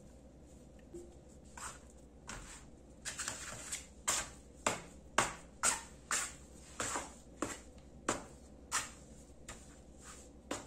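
Plastic dough scraper scraping and tapping on a floured silicone baking mat while folding a soft risen yeast dough: a series of short, sharp scrapes, about two a second, from about three seconds in until near the end.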